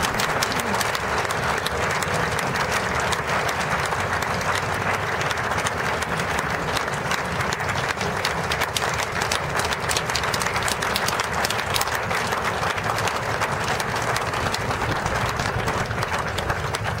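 Crowd of spectators applauding steadily, many hands clapping at once, with a low rumble of small vehicle engines underneath.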